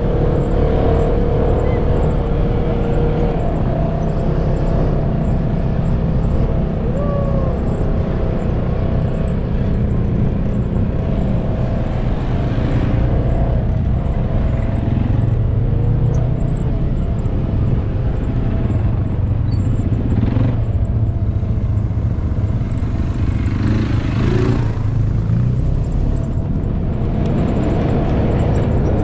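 Off-road side-by-side buggy running along a bumpy dirt track: steady engine drone and rumble, heard from inside the moving vehicle.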